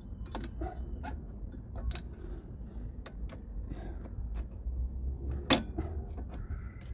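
Scattered metallic clicks and clinks of a screwdriver and springs against the rear drum brake assembly as the brake shoe return springs are taken off, with one sharper clink about five and a half seconds in, over a low steady rumble.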